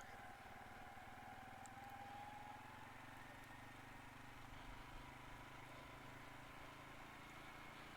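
CFMOTO CForce 500 ATV's single-cylinder engine running steadily and faintly, with a thin whine slowly rising in pitch.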